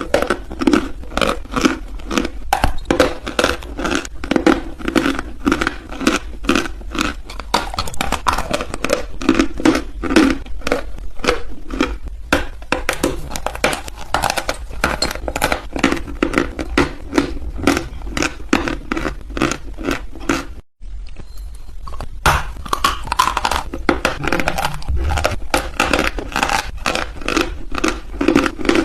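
Close-up crunching and chewing of brittle dry chalk in the mouth: a dense, rapid run of sharp crackles and crunches that breaks off for a moment about two-thirds of the way through.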